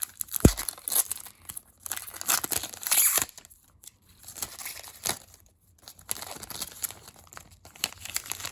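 A trading card pack's wrapper being torn open and crinkled, with cards handled, in a run of irregular crackles. A single dull thump comes about half a second in.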